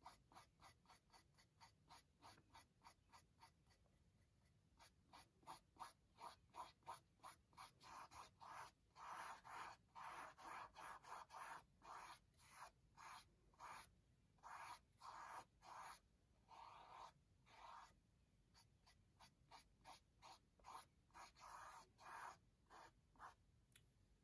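Paintbrush strokes back and forth across a canvas, laying on green paint: a steady run of short, faint swishes, about three a second, fullest in the middle.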